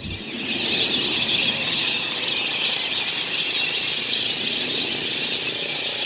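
Dense chorus of a large flock of migratory birds calling all at once, a continuous high-pitched chattering clamour that swells up within the first second.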